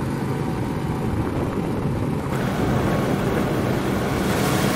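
Go-kart running at speed on track, its small engine buried under heavy wind rush on the microphone; the rush turns brighter and hissier about two seconds in.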